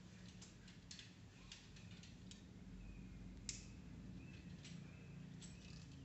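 Faint, scattered clicks and taps from a rope climber moving on a limestone overhang, with one sharper click about three and a half seconds in, over a low hum.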